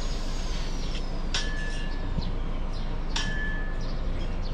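Pistol BBs striking a glass beer bottle: two sharp cracks about two seconds apart, each followed by a short ringing clink, over a steady low hum.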